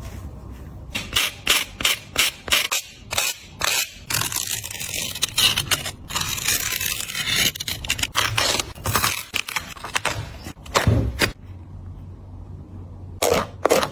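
A Nike Kyrie 7 basketball shoe being cut and pulled apart by hand: a run of sharp scraping strokes, several a second, with a longer unbroken scrape in the middle. The scraping pauses for a moment, then a few more strokes come near the end.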